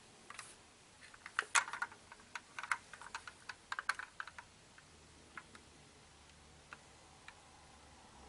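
Light, irregular clicks and taps from a die-cast model car being handled and turned in cotton-gloved hands: a quick cluster through the first half, then a few scattered ticks.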